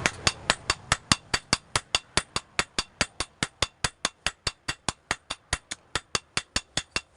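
Blacksmith's hammer striking hot metal on an anvil in rapid, even blows, about five a second, each with a metallic ring.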